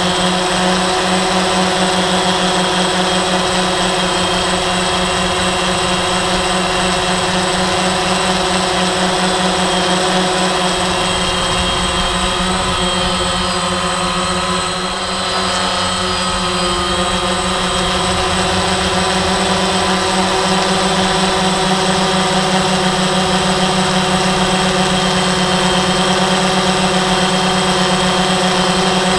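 DJI quadcopter's electric motors and propellers whining steadily at close range, heard from the camera carried on the drone in flight; the sound eases briefly about halfway through, then holds steady again.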